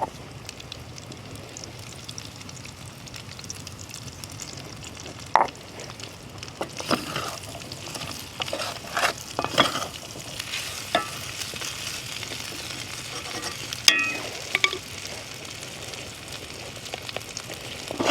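Food frying in a cast iron pan over an open fire: a steady sizzle that grows brighter about a third of the way in, with a utensil stirring and scraping against the pan in scattered clicks and scrapes.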